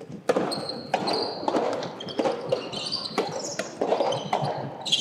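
Soft tennis play on an indoor court: a soft rubber ball struck and bouncing, heard as several irregular sharp knocks, with short high squeaks of shoes on the court floor.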